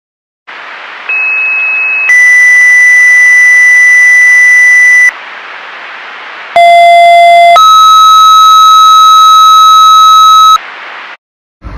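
Two sets of two-tone sequential fire dispatch paging tones over radio hiss. In the first set, a one-second high tone steps down to a steady three-second tone. After a gap of hiss, a one-second low tone steps up to a steady three-second tone. The tones are loud and pure.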